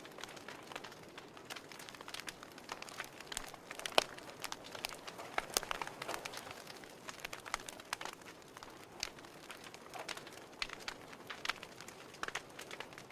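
Fire crackling: irregular pops and snaps over a soft hiss, with one loud pop about four seconds in.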